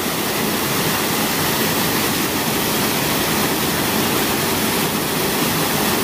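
Steady rushing of water falling into a pool, heard up close: the outflow released from a dam, pouring over a rocky bank like a small waterfall.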